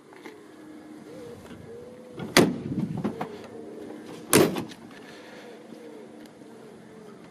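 The coachbuilt door of a 1947 Alvis TA-14 being worked: two loud clunks about two seconds apart, each ringing briefly, the second just as the chrome door handle is turned.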